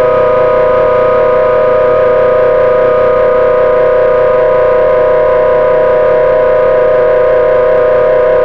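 Instrumental music holding one sustained chord with no rhythm or change in pitch.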